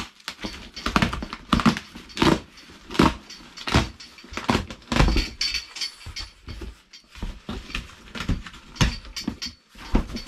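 Cardboard shipping box being opened and its packing and parts handled: a run of irregular rustles and knocks.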